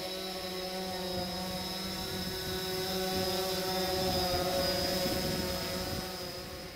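Multirotor drone's propellers running in flight: a steady whirring hum with a high whine on top, swelling louder toward the middle and easing off near the end.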